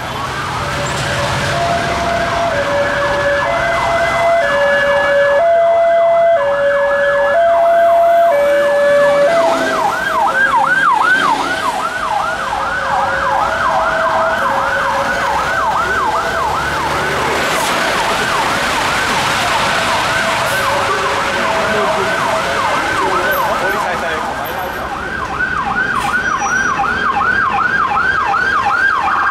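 Emergency vehicle sirens in traffic. For roughly the first half, a two-tone siren alternates between two notes about once a second over a fast yelp siren. The yelp then carries on alone, dipping briefly near the end before coming back.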